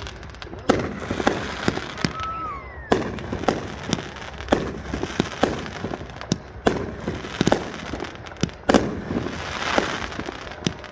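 Aerial fireworks shells bursting overhead: a run of sharp bangs, about two a second at irregular spacing, with a hissing crackle between them. The loudest bangs come just under a second in, about three seconds in and just under nine seconds in.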